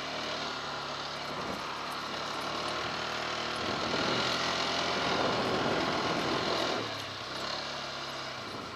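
Quad (ATV) engine running as it rides along, with a rushing noise over it; it grows louder about four seconds in and eases off about seven seconds in.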